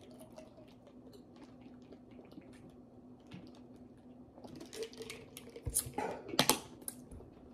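Drinking from a water bottle: after a quiet stretch with a faint steady hum, swallowing and handling clicks start about four seconds in, with a couple of knocks near the end as the bottle is moved.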